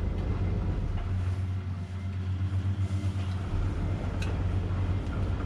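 Laundry machine running with a steady low hum, its lowest rumble briefly dropping away in the middle.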